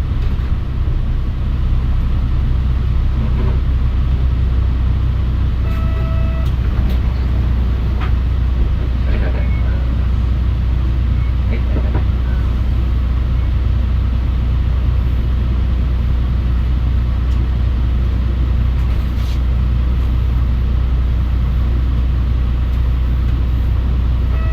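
Mitsubishi Fuso Aerostar route bus heard from inside the cabin, its diesel engine running with a steady low drone. A short electronic beep sounds about six seconds in and again at the very end.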